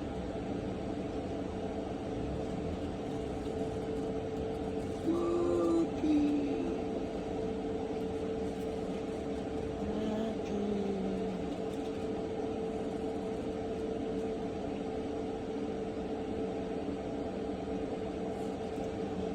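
A steady machine-like hum with a constant tone, as from a household appliance or fan. A few short tonal sounds come over it about five seconds and ten seconds in.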